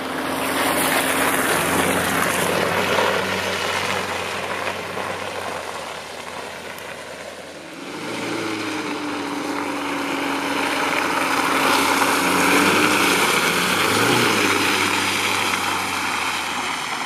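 Volkswagen T6 van driving: engine and tyre noise make a continuous drone. About halfway through, the engine's note comes up as a clear tone that slowly falls in pitch over several seconds.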